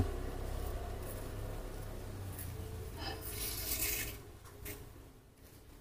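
Faint rustling and scraping about three to four seconds in, over a low steady rumble.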